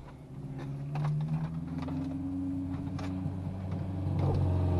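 Ford Explorer Sport Trac's V6 engine running while driving, heard from inside the cab. It climbs in pitch as the truck picks up speed, holds steady, then drops in pitch near the end as it eases off.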